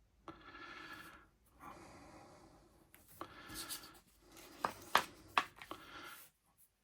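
Hands rubbing and handling a newly unboxed iPhone 17 Pro Max and its packaging: several short stretches of soft rubbing, then a few sharp clicks or taps about five seconds in.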